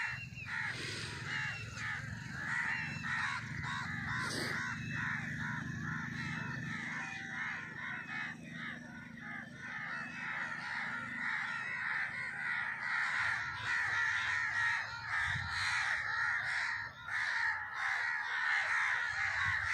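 A dense background chorus of many birds calling, short calls overlapping without a break, over a low steady rumble.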